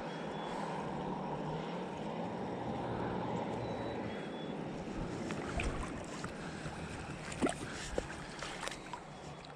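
Steady rushing of a flowing river, with a few faint clicks in the second half.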